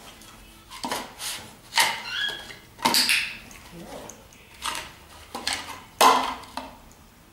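A small tub being nosed by a dog, knocking and clattering against a dog bowl on the floor: a string of irregular knocks, the loudest about six seconds in.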